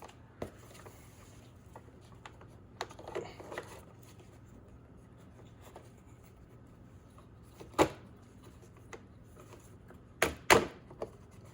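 Plastic trim clips being pushed into a car door panel: a few faint knocks and rattles, then three sharp clicks as they snap home, one about eight seconds in and two close together near the end.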